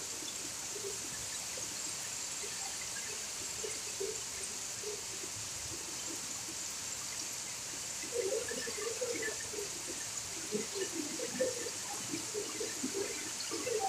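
Heavy rain pouring down steadily, with water streaming off a roof edge. Uneven splashing grows louder about eight seconds in.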